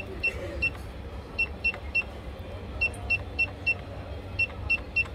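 Electronic cash register's keypad beeping once for each key press: about a dozen short, identical high beeps in quick runs of three or four as the function-setting menu is scrolled down.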